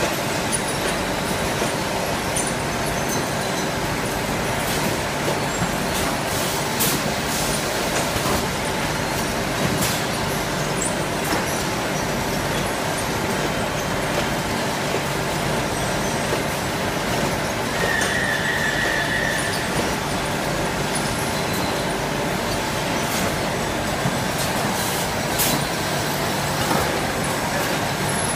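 Automatic case-packing machine running, loading cans into cardboard cases: a steady loud mechanical running noise with several sharp clacks, and a brief high tone about eighteen seconds in.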